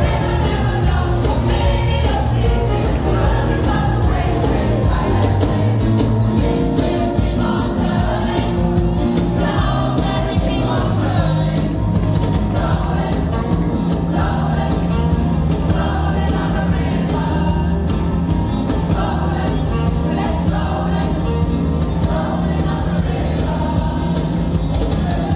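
Mixed choir singing a song live with a band, electric guitars and a steady beat underneath.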